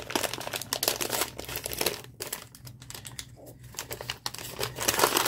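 Crinkling and rustling of a small gift-wrapped package being unwrapped by hand: irregular crackles, busiest in the first two seconds, thinning out, then a louder cluster near the end.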